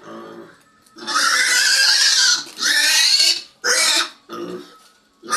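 Piglet squealing while held by the ear for a subcutaneous injection: a short low grunt, then two long, loud, high squeals and two short ones, with another starting at the end.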